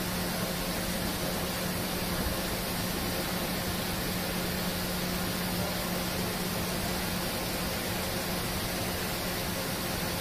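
Pietro Carnaghi ATF-14 TM CNC vertical turn-mill center running under power: a steady low hum over an even machinery hiss.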